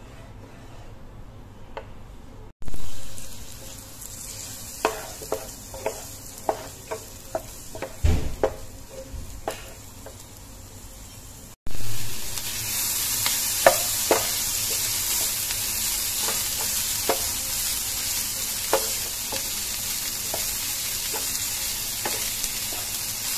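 Diced onion and meatball pieces frying in butter in a nonstick pan, sizzling, while a wooden spatula stirs and taps against the pan. The first couple of seconds are quiet. The sizzle starts suddenly about two and a half seconds in and gets much louder about halfway through.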